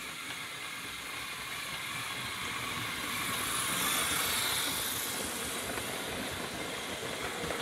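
Motorised LEGO train running along plastic LEGO track, the wheels and motor making a steady rolling rush that swells as the locomotive and coaches pass close by about four seconds in.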